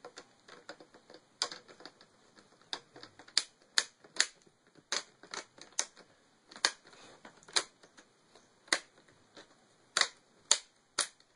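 Plastic laptop screen bezel snapping onto the display lid: a string of sharp, irregularly spaced clicks as its retaining clips catch one after another.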